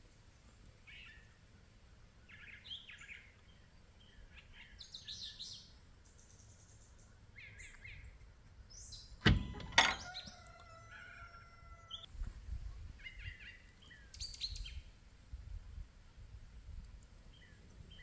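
Birds chirping on and off in short high calls. About halfway, two sharp knocks come half a second apart, the second one ringing on for a couple of seconds.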